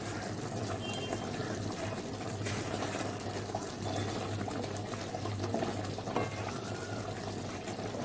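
Thick gravy bubbling and simmering steadily in a metal kadai as a wooden spatula stirs through it.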